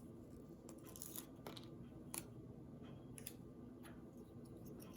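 Faint scattered clicks and light rustling from small hands-on handling of a plastic toy figure and its sticker sheet while a sticker is being peeled and applied.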